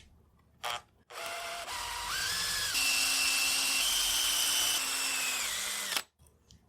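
Electric drill running as it bores a screw hole for the buttplate into the walnut buttstock; its whine steps up in pitch several times as it speeds up, drops slightly near the end, and stops suddenly. A short click comes just before it starts.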